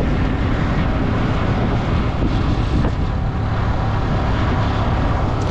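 Wind rushing over the microphone with the steady drone of a Yamaha R15's single-cylinder engine beneath it, the motorcycle cruising at a constant speed.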